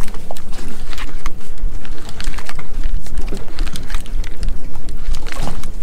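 Wind buffeting the microphone on an open boat, a heavy uneven rumble, with scattered sharp clicks and taps throughout.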